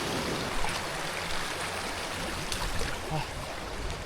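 A small, clear forest stream running, a steady rush of flowing water, with a few faint knocks over it.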